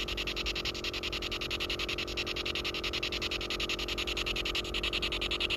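Ghost-hunting EMF pump device running through its small speaker: a rapid, even pulsing of electronic static over a steady hum.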